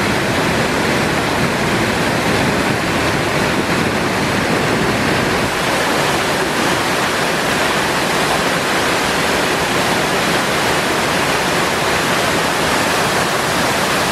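Small waterfall pouring over stepped stone ledges and rushing down a rocky channel: a loud, steady rush of white water.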